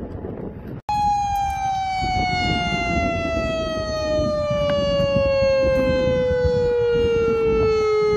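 Pole-mounted tsunami warning siren sounding one long wail that falls steadily in pitch. It cuts in abruptly about a second in.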